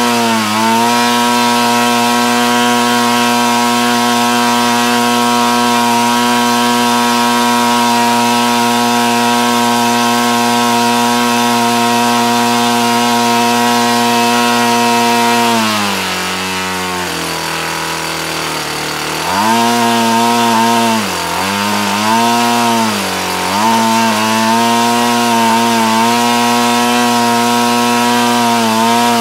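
Craftsman 42cc two-stroke chainsaw engine, converted to electronic ignition and turning a 20x8 propeller on a test stand, running steadily at full throttle for about sixteen seconds. It is then throttled back to idle, blipped up and down several times, held at full throttle again, and throttled down at the very end.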